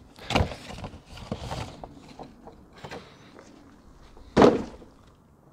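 Cardboard air filter box being opened and handled, with rustling and light knocks, then one louder thump about four and a half seconds in.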